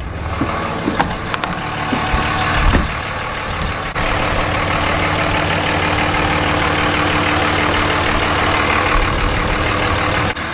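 Dodge Ram 2500's 5.9-litre Cummins inline-six diesel engine idling steadily. The sound changes abruptly about four seconds in and runs a little louder and more even after that.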